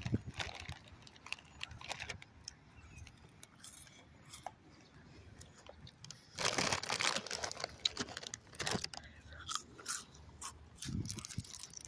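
A person chewing crunchy ranch-flavored Hot Fries corn snacks, with scattered crisp crunches and a louder run of crunching about six and a half seconds in.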